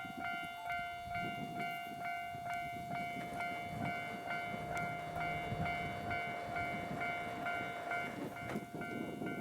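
Railway level crossing warning bell ringing in an even repeating rhythm, a little over two strikes a second, over a low rumbling train noise on the line.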